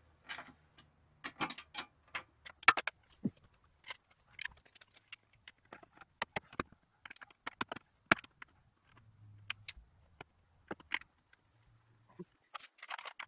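Scattered sharp clicks, taps and clinks of hard parts being handled as a round LED headlight and its chrome trim ring are worked into a motorcycle fairing, one louder click about three seconds in.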